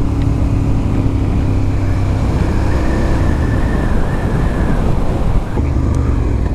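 Suzuki SV 650 V-twin engine running under way, with wind rushing past, and a faint high whine for a couple of seconds in the middle; the engine note eases off near the end. The rider hears an odd noise on the motorcycle that he cannot place.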